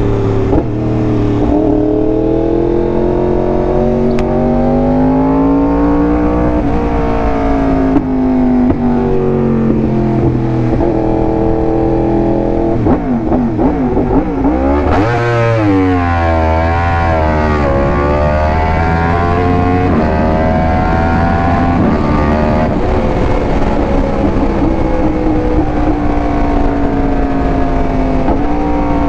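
Yamaha R1M's crossplane inline-four through an SC Project exhaust under hard acceleration. The pitch climbs and then drops back at each gear change. Around halfway it falls low and then shoots up sharply, over a steady rush of wind.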